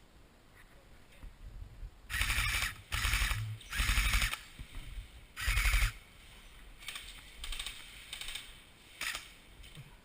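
Airsoft gun firing four short bursts of rapid shots, about half a second to a second each, two to six seconds in.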